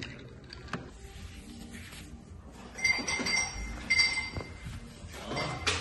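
Ice clinking in a drinking glass: a few light clinks and short glassy ringing tones, mostly between about three and four seconds in.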